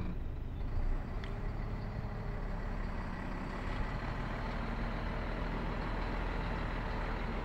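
Diesel engine of a loader lorry running steadily, heard from inside the cab as the truck sets off across a gravel yard.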